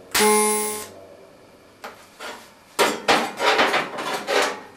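Stainless-steel sheet pieces being handled and knocked on a metal bench. A single ringing metallic clang sounds at the start, then a quick run of knocks and clatter fills the second half as the pieces are tapped into position.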